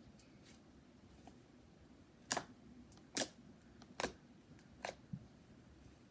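Slime being squeezed and played with, letting out a series of sharp clicking pops as air pockets burst, about five over three seconds.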